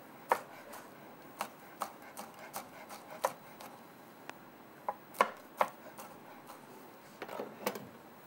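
A large kitchen knife chopping green chillies finely on a wooden cutting board: irregular sharp knocks of the blade on the board, about two a second.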